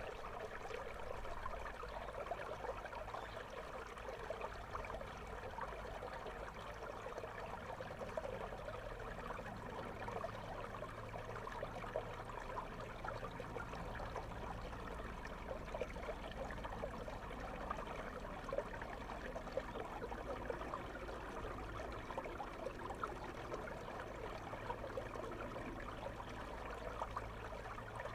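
River water flowing over stones, heard through a camera microphone held underwater: a steady bubbling, crackling rush.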